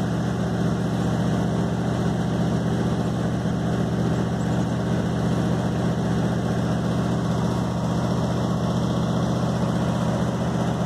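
Old pickup truck's engine idling steadily as it warms up, heard close to the tailpipe.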